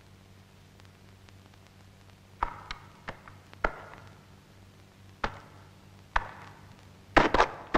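Sparse, sharp percussion hits from a cartoon soundtrack: a few single strikes, starting about two and a half seconds in and spaced a second or so apart, then a quick run of several near the end. A faint low hum lies under them.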